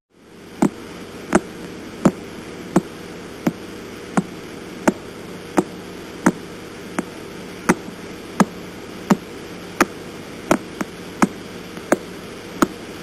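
Radio signal of the pulsar PSR B0329+54 played as sound: sharp clicks about 1.4 times a second, each one a pulse from the star as it rotates, of uneven strength over a steady hiss and hum.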